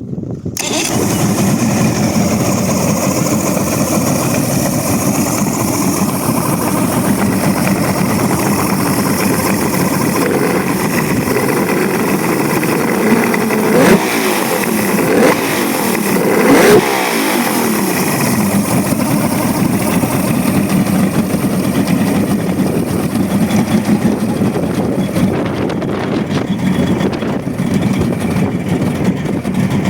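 Mercury outboard motor running after a repair, a steady engine drone that is briefly revved up and back down a few times about halfway through.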